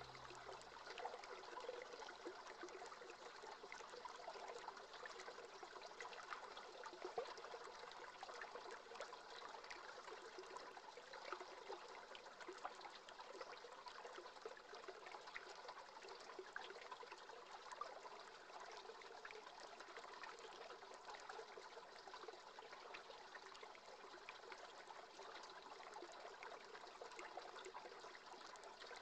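Faint, steady trickle and burble of a shallow creek running over its bed.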